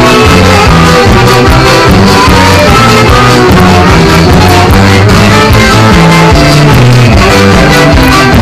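Live band music played very loud: saxophones carrying the melody over electric guitar and a band accompaniment.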